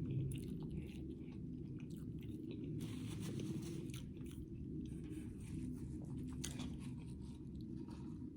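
A person chewing and biting fried fast food close to the microphone, with scattered short crunches and mouth clicks.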